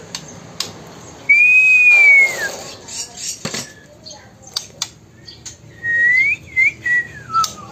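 Two long, pure whistled notes: the first held high, then falling off at its end; the second rising, then stepping down in pitch. A few light clicks fall between them.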